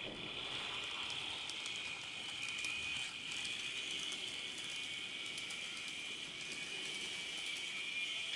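N-gauge model train, a Keihan 600 series, running on the layout track: a steady high motor whine, with scattered sharp clicks as the wheels run over rail joints and through the points.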